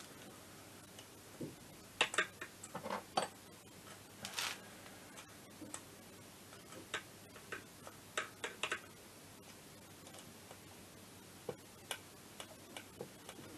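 Irregular light metallic clicks and taps of hand tools and small bolts on an MBK Spirit scooter's crankcase, as the hex-socket bolts of the starter drive's retaining bracket are fitted. A few louder clicks come about two seconds in and again a little after four seconds.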